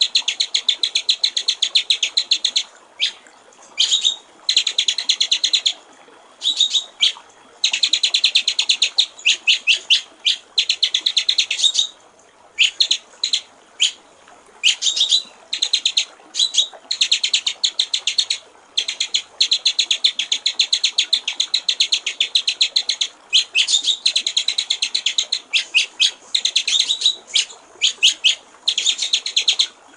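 White-rumped shama singing in fast, stuttering runs of rapidly repeated high notes, each run lasting from a second to several seconds with short pauses between, over faint trickling water.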